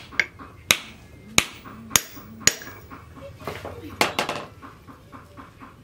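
Hammer blows on the forging: five sharp strikes a little over half a second apart, then a quick cluster of hits about four seconds in.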